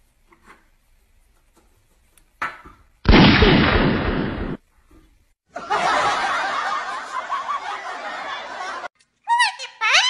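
A loud, sudden bang about three seconds in that fades over a second or so, then laughter for about three seconds.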